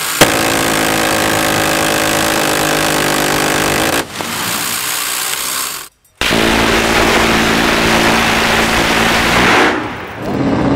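Electrically driven M134 six-barrel minigun firing long continuous bursts, each heard as one steady buzz at its very high rate of fire. The first burst lasts about four seconds; after a brief break a little past the middle, a second burst runs about three and a half seconds and then stops.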